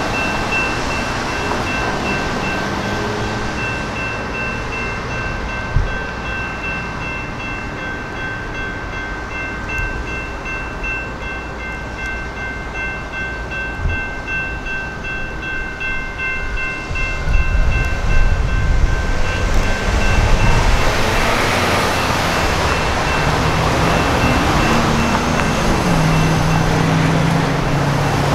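General Signals Type 2 electronic crossing bell ringing in steady rapid dings as an electric light rail train passes through the crossing. About 17 seconds in a louder low rumble of the passing train rises, the bell fades, and road traffic noise takes over near the end.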